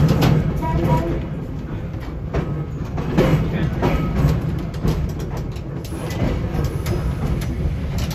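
Trolley car under way, heard from inside the wooden car body: a steady low rumble of wheels on rail, with irregular clicks and knocks from the wheels and the car body.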